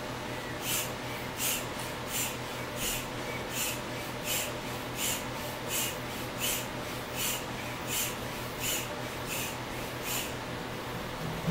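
Small hand pump being squeezed over and over to inflate an exercise ball through a hose: a short puff of rushing air with each squeeze, evenly spaced at about one every 0.7 seconds.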